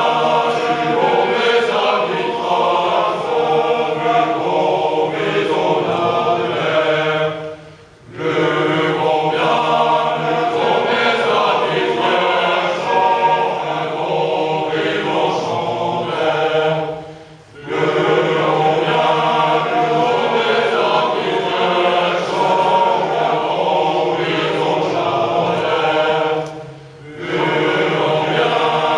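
A large chorus of young male voices singing a traditional French song together, in long sung phrases broken three times by short pauses for breath.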